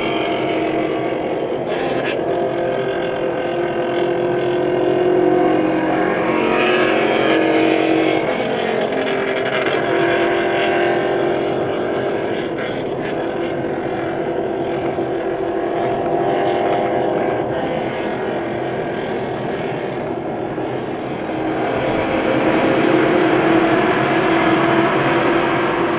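Car at highway speed heard from inside the cabin: steady engine and tyre road noise, growing louder near the end as the car drives into a tunnel.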